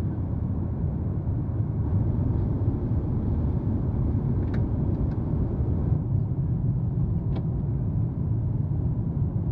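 Steady low rumble of an airliner cabin in flight: engine and airflow noise, with a few faint clicks as an overhead bin is handled.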